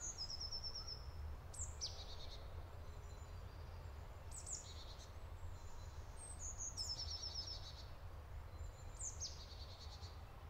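A songbird singing short phrases over and over, about five times, each a quick high downward sweep that runs into a brief rapid trill. A faint low rumble runs underneath.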